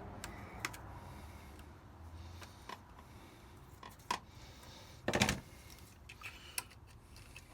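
Faint clicks and rustles of hands working twisted copper wires into an electrical socket outlet, with a louder short rustle about five seconds in.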